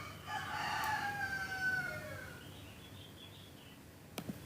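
A rooster crowing once, one long call of about two seconds that falls in pitch at the end. Two short clicks follow near the end.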